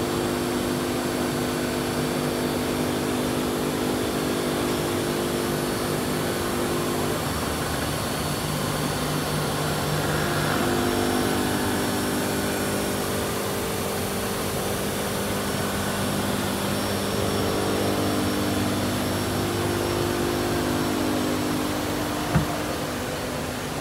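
Machinery running: a steady motor hum with several tones that shift a couple of times, and one sharp knock near the end.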